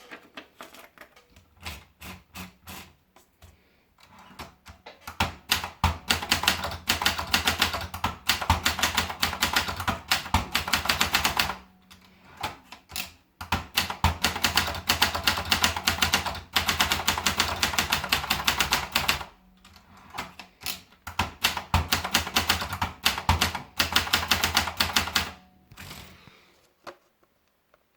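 Olympia Splendid manual portable typewriter being typed on: quick runs of key strikes, each several seconds long, broken by short pauses about 12 and 20 seconds in. The typing is slow and scattered at the start and dies away near the end.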